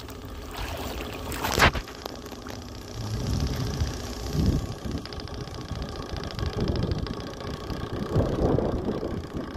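The Cox Water Wizard tether boat's tiny two-stroke glow engine running at a distance with a steady high buzz as the boat circles on its tether. There is a single bump about one and a half seconds in, and low wind rumble on the microphone comes and goes.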